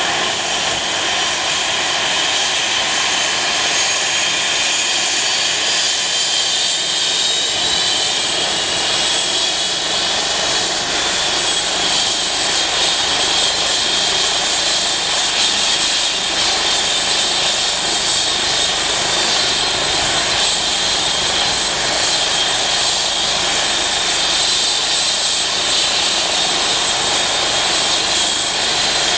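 Eurocopter EC135 ambulance helicopter running on the ground: a steady, loud turbine whine over a rushing noise. A few of the high whine tones shift slightly in pitch during the first several seconds.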